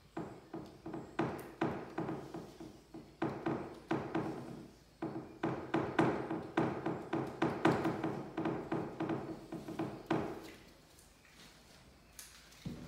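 Quick tapping on an old wooden window sash and its glass pane, about three taps a second in three runs, with a steady low tone under the taps; the tapping stops about ten seconds in. A single knock follows near the end.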